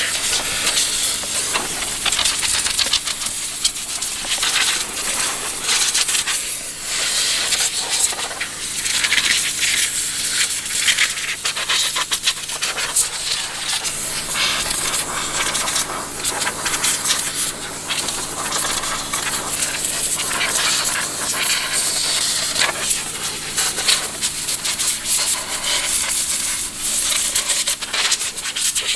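Pressure-washer spray hissing against a scooter's plastic body panels and floorboard, over a low steady hum.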